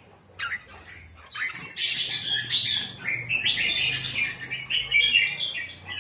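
Red-whiskered bulbul of the Hóc Môn song type singing: after a quiet first second or so, a fast run of bright, broken chirping and warbling notes.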